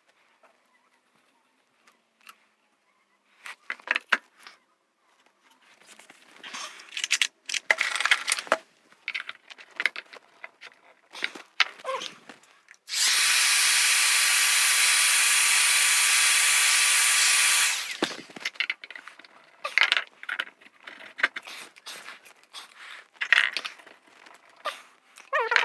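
Hand tools clicking and scraping on the parts of a car heater blower motor, then a steady, loud machine noise for about five seconds that cuts off suddenly, with more clicking after it.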